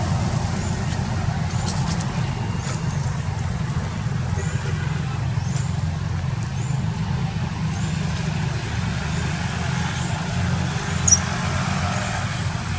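Steady low outdoor rumble, with a faint high chirp repeating a little faster than once a second and a single sharp tick near the end.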